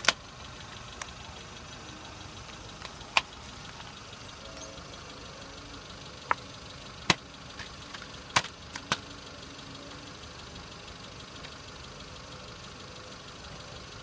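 Kia car's engine idling steadily, with a few sharp plastic cracks and clacks: the first pair as the tyre presses down on stacked DVD cases, then more a few seconds later as plastic cases are handled and set down.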